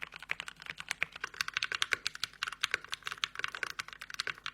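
Fast, continuous typing on a computer keyboard: a dense run of sharp key clicks, several strokes a second.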